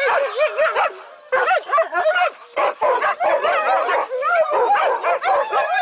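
A team of harnessed sled dogs, young GTH dogs among them, yelping and howling together in many overlapping, wavering high calls, eager to pull. The calls dip briefly about a second in, then resume.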